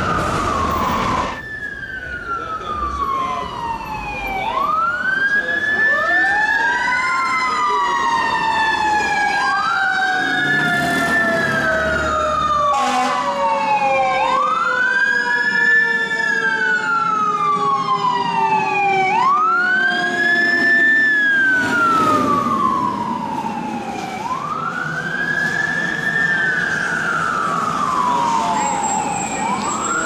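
Boston Fire Engine 10's mechanical siren wailing: a quick rise then a long wind-down in pitch, repeated about every five seconds, with a second siren tone winding slowly down beneath it. About a second in, an earlier siren is cut off.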